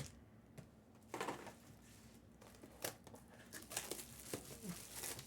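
Plastic wrapping on sealed trading card packs crinkling as it is handled and torn open, in a few short faint crinkles.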